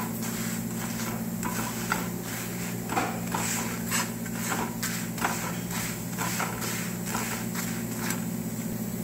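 A flat spatula pressing and scraping a chapati frying in butter on a flat pan, with irregular scrapes and taps over a steady low hum.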